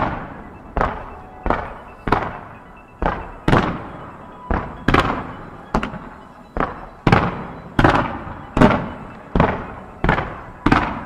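Aerial fireworks shells going off in a rapid, evenly paced barrage, a sharp bang about every two-thirds of a second, each echoing away before the next.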